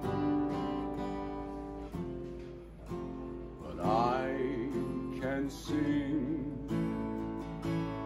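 Strummed acoustic string instrument playing steady chords, with a man's voice singing a phrase that bends in pitch about four seconds in and another just before six seconds.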